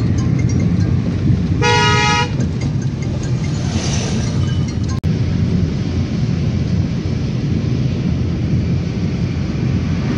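Steady low rumble of a car's engine and tyres heard from inside the moving car. A vehicle horn sounds once, briefly, about two seconds in.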